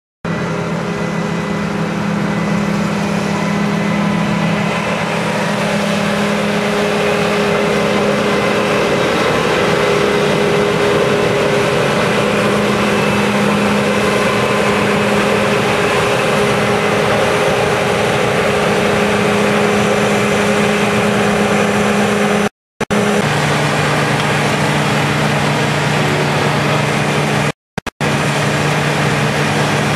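John Deere combine harvester and tractor engines running steadily with a constant mechanical hum. The sound cuts out briefly twice, about three-quarters of the way through.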